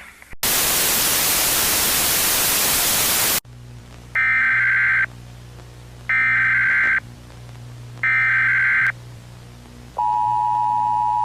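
A loud burst of static hiss for about three seconds, then three short warbling data bursts of an Emergency Alert System SAME header, evenly spaced. Near the end the steady two-tone EAS attention signal starts.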